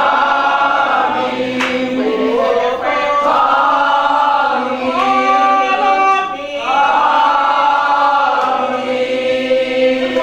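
A group of women singing together in long, held phrases.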